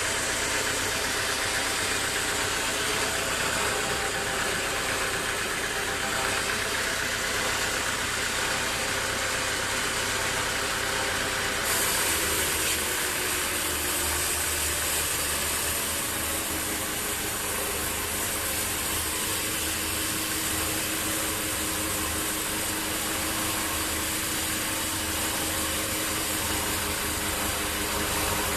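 Sawmill machinery running steadily, an engine-like drone with a change in its tone about twelve seconds in.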